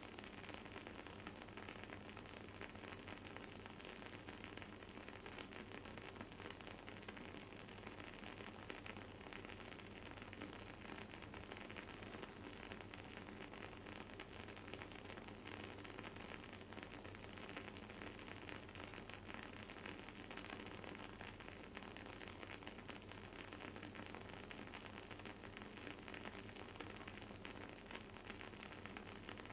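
Wooden candle wick burning with a faint, continuous crackling and sizzling: many tiny pops close together, over a low steady hum.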